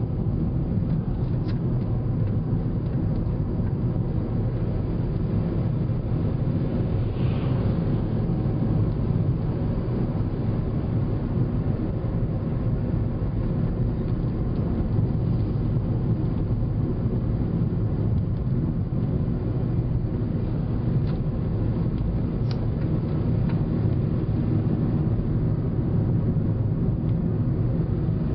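Steady road noise inside a moving car cruising on an asphalt highway: engine and tyres make a low, even rumble that holds throughout. A brief higher rush comes about seven seconds in.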